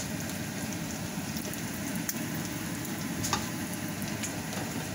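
Pork chops sizzling steadily in hot oil in a cast-iron skillet, with a couple of faint clicks.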